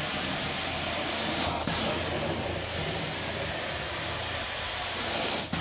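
Carpet-cleaning wand running over carpet: a steady rushing hiss of suction and spray.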